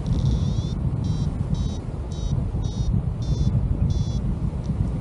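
Paragliding variometer beeping in short high tones a little under twice a second, the first beep longer and rising: its climb tone, signalling that the glider is in rising air. Steady wind rush on the microphone underneath.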